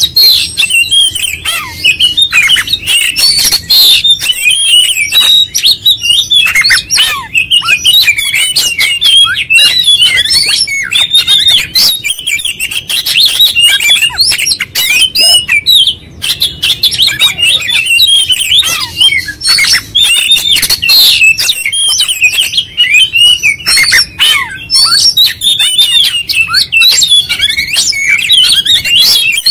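Oriental magpie-robin (kacer) singing without let-up: a fast, varied stream of whistles and chattering notes with sharp clicky calls, breaking off briefly about halfway. This is the bird in full song, delivering its learned song material.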